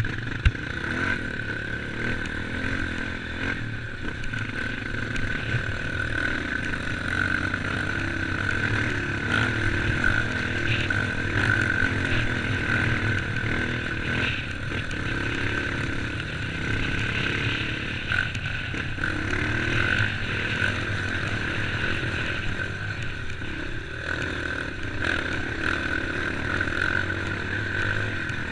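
Off-road vehicle engine running continuously on a trail, with a steady high whine over the engine note.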